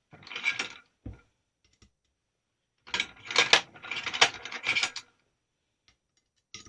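Metal clicking and rattling of a tool and small rifle parts being handled while a screw is taken out of the rifle's action. A short clatter at the start, a knock about a second in, then about two seconds of dense clicks from around three seconds in, and one last click near the end.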